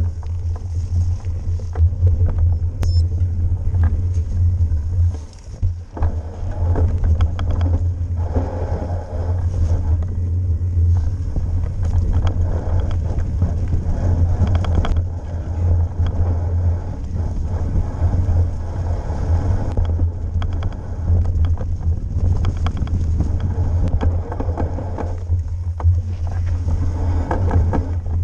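Mountain bike riding fast down a rough trail, heard from a camera on the bike: a heavy low wind rumble on the microphone over the noise of tyres on gravel, dirt and leaves, with frequent knocks and rattles from the bike over bumps.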